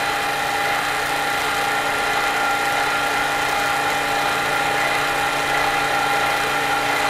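Milling machine running steadily with a constant whine, its end mill taking a light cut in a folding-knife liner as the rotary table is turned back, relieving the area around the pivot.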